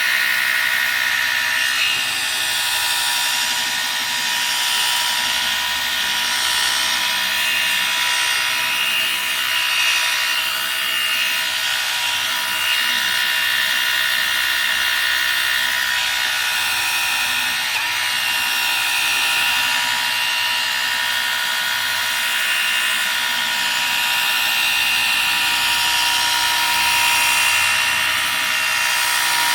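Right-angled Milwaukee cordless drill running steadily with a polishing pad, wet-polishing a mark on the car's windscreen glass: a continuous motor whir with the pad rubbing over the wet surface.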